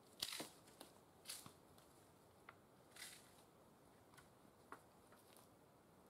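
Faint footsteps of rubber boots in dead leaf litter: a few short rustles, the loudest just at the start, with small sharp clicks in between.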